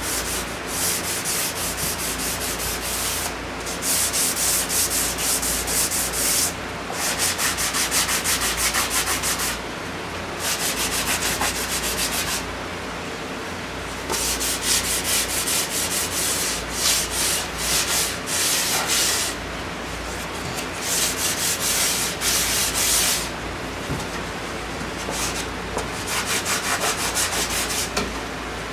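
Hand sanding wood door parts with 220-grit sandpaper: quick back-and-forth rubbing strokes in stretches of a few seconds, broken by short pauses.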